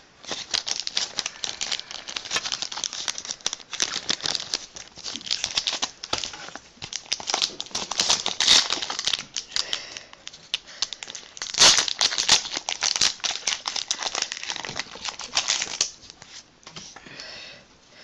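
Foil wrapper of a Pokémon trading card booster pack crinkling and tearing as it is ripped open and handled. It is a dense run of crackles that thins out and goes quieter near the end.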